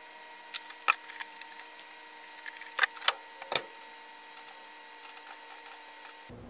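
Plastic clicks and knocks from a front-loading washing machine being loaded and closed: the detergent drawer and door being handled, the deepest knock about three and a half seconds in as the door is shut. A faint steady electrical hum runs underneath.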